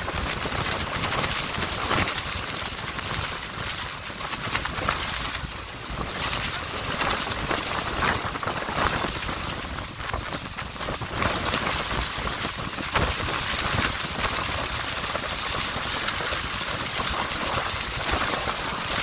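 Wind buffeting the microphone on the open deck of a moving tour boat, over a steady rushing noise of water and the boat under way.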